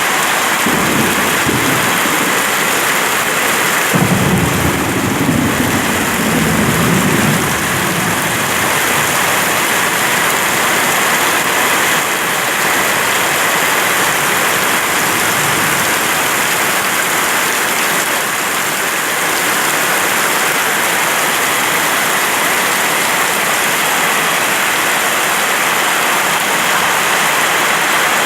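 Heavy rain falling steadily. Low rolls of thunder come about a second in and again, louder, from about four to eight seconds.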